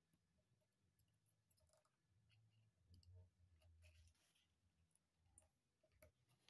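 Near silence: a few faint scattered clicks over a faint low hum.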